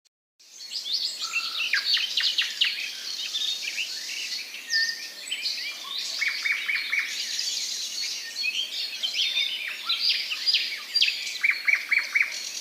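Several songbirds singing and chirping at once, their high calls and trills overlapping; twice one bird gives a quick run of four or five clipped, repeated notes.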